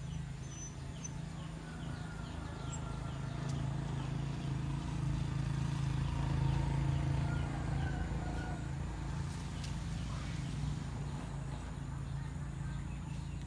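Rural outdoor ambience: small birds chirping in quick short notes over a steady low hum, with faint chicken clucking.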